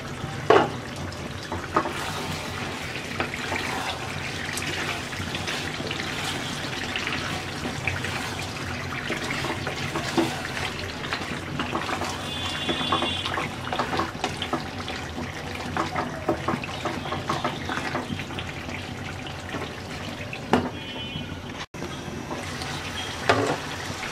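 Beef curry simmering in its own juices in a pan, a steady bubbling hiss, with a wooden spatula stirring the meat and knocking against the pan a few times. The meat is at the stage of cooking down over medium-low heat until tender.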